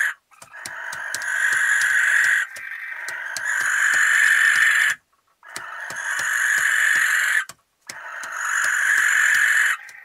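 Barn owl giving long, rasping, hissing screeches, about four of them in a row. Each lasts around two seconds, swells and then stops abruptly.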